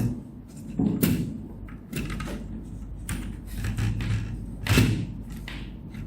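Handling noise from taking apart a laptop: a few sharp knocks and clicks of plastic parts and a tool, about a second in, two seconds in and a louder one near the end, as the screen-hinge mounts are unscrewed.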